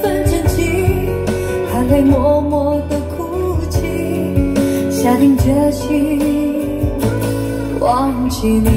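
A Chinese pop ballad played back through JBL Studio 530 bookshelf speakers and a subwoofer. This is a passage between sung lines: a melody that slides between notes over guitar, held chords and a steady bass.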